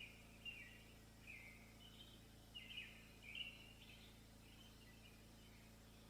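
Faint bird chirping: a run of short, high chirps, roughly two a second, that dies away near the end.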